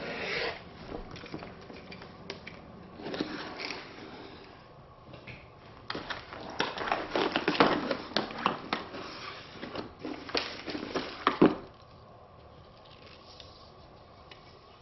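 A shipping package being opened and its packing handled: irregular rustling and crinkling with sharp crackles and clicks, busiest in the second half, stopping about twelve seconds in.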